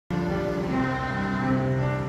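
A group of children and adults singing a gospel song together in held, sustained notes.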